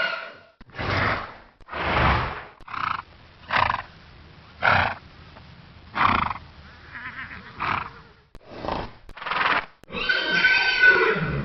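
A horse snorting, about ten short, forceful blasts of air through the nostrils, one after another with brief gaps. About ten seconds in, a shrill, pitched horse scream (whinny) begins and runs to the end.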